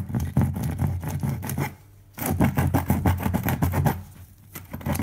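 Woofer voice coil scraping in its magnet gap as the cone is pushed in by hand: a gritty rasp in two strokes of about a second and a half each, with a third starting near the end. The coil has rubbed, overheated and burnt open.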